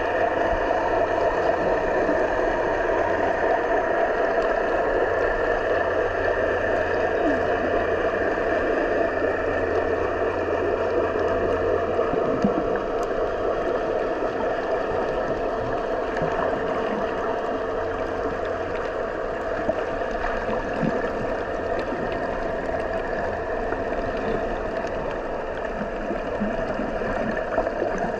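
Steady, muffled underwater rush heard through a GoPro Hero10 in its waterproof housing, with faint scattered clicks.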